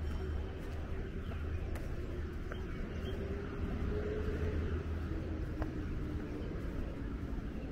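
City street ambience: a steady low rumble of traffic, with a faint hum that drifts slowly in pitch and a few light clicks.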